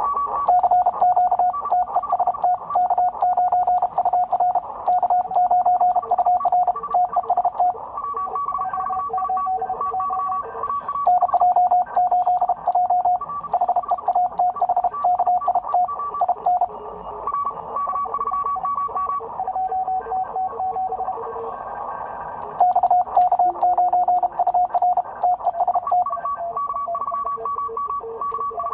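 Morse code (CW) heard through a Drake 2B receiver: on-off beeps at a couple of different pitches from stations in a contest. In three stretches the operator's own sending joins in, with a small isolation relay clicking rapidly along with each keyed dot and dash.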